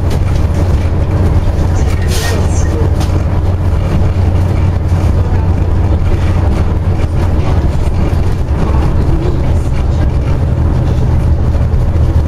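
Scania OmniCity double-decker bus under way, heard from inside the passenger saloon: a steady low drone of its diesel engine together with road noise. A brief hiss comes about two seconds in.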